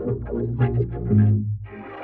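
Distorted, effects-processed electronic sound heard as music: a quick run of short pitched notes over a low buzzing hum, dropping away after about a second and a half.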